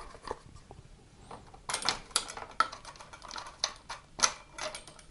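Handling clatter of a softbox lamp holder and its mounting bracket being fitted onto a light stand: scattered clicks and knocks, a quick run of them about two seconds in and a sharp knock a little after four seconds.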